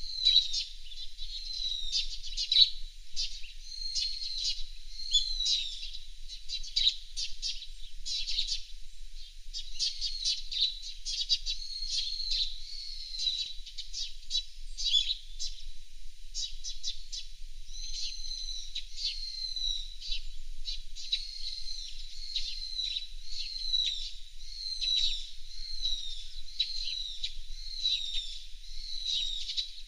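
Several small songbirds chirping and calling without pause. Many short high notes overlap with repeated down-slurred calls.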